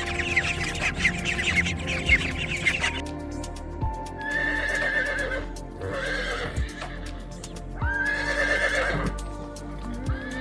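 Horses neighing repeatedly, one long wavering whinny about every two seconds, over background music. For the first three seconds, rapid high-pitched bird calls from the previous clip come before the neighs.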